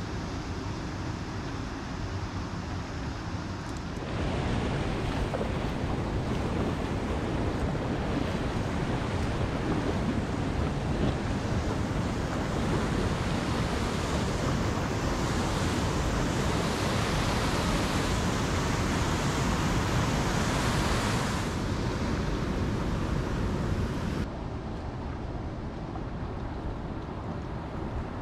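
River water rushing over a small rocky rapid, a steady rushing noise with wind on the microphone. It comes in suddenly about four seconds in and drops away abruptly a few seconds before the end, leaving quieter wind and water.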